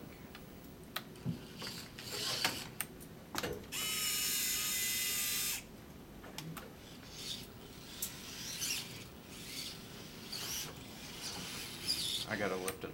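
Hobby servo motors of a small robot whining in short runs as it drives and turns, with clicks and rattles from its gears and mechanism. The longest and loudest whine lasts about two seconds, starting a little under four seconds in.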